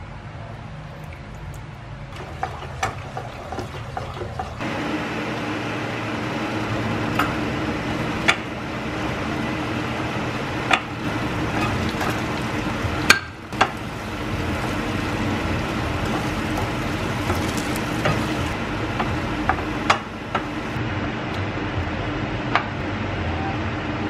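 Sauce bubbling and sizzling in a frying pan as it is stirred, with sharp clicks of a utensil knocking against the pan. The sizzling gets louder about five seconds in, and there is one louder knock about halfway through.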